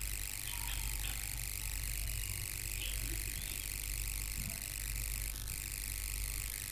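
Steady background hiss with a low hum underneath, and no distinct event.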